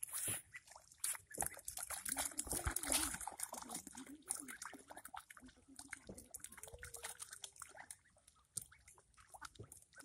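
Young ducks calling with low, wavering quacks as they dabble through shallow muddy water, among scattered rustles and splashes.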